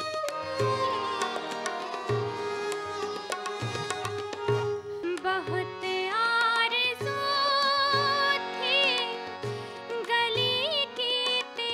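Live ghazal accompaniment: tabla keeps a steady low beat under plucked sitar and harmonium. From about halfway, a sustained, ornamented melody line with wavering pitch rises over the ensemble.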